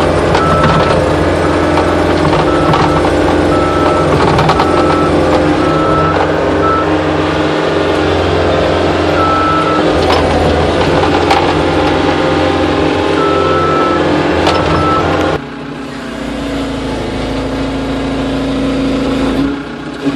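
Caterpillar 287B compact track loader being driven, its diesel engine running hard with knocks and clanks from the machine. The back-up alarm beeps in repeated runs while it reverses. About fifteen seconds in the engine sound drops sharply and runs quieter.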